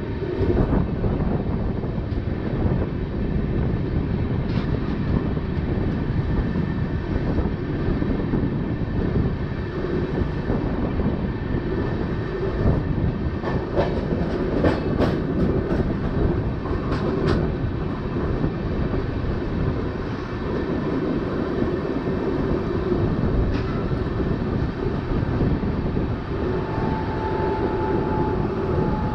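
Steady running rumble of a moving passenger train's LHB coaches on the rails, with a short run of sharp clicks from the wheels about halfway through.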